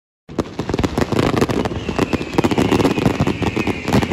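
Fireworks going off, a dense run of bangs and crackles that starts suddenly a moment in, with a high whistle slowly falling in pitch from about two seconds in.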